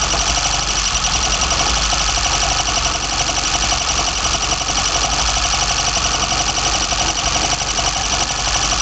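BMW M10 inline-four engine breathing through sidedraft individual throttle bodies, idling steadily, with a thin high whistle running through it.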